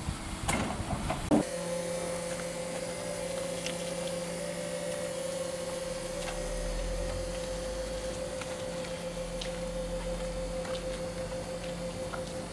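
Small electric forklift running with a steady motor whine as it carries a load on its forks. It starts about a second and a half in.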